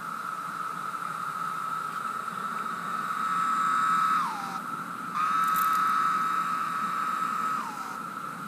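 Chorus of periodical cicadas, a steady high-pitched drone. Twice, about four seconds in and near the end, the loudest calls fall in pitch as they end.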